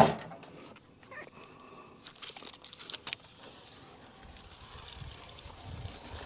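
Lumber being handled: a sharp knock right at the start, then scattered light clicks and knocks, with faint rustling in the second half.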